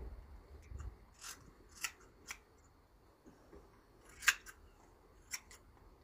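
Hand shears snipping through a Valais Blacknose sheep's fleece: about half a dozen scattered sharp snips, the loudest a little after four seconds in.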